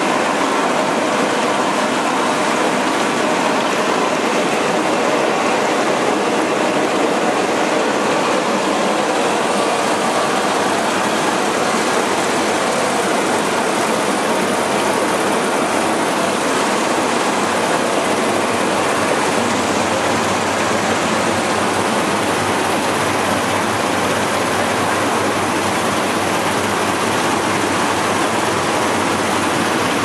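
WL-24 eddy-current vegetable washing machine running: water churning and splashing steadily in its tank as the current tumbles leafy greens, with a machine running underneath.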